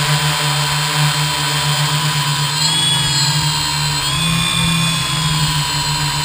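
Multirotor drone's electric motors and propellers running, heard from a camera mounted on the frame: a steady low hum under a high whine that wavers up and down in pitch about halfway through as the motor speeds change.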